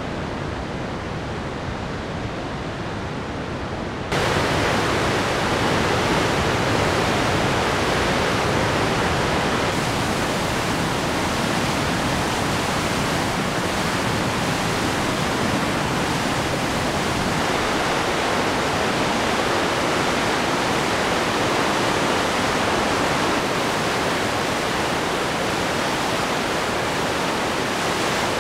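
Whitewater rapids of a large river rushing steadily. About four seconds in the rushing gets louder and fuller, then holds.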